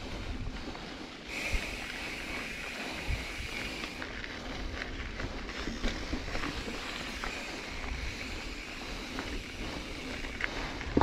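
Mountain bike riding down a dirt trail: wind on the microphone and the tyres rolling over the ground, with scattered small ticks. A steady high buzz comes in suddenly about a second and a half in.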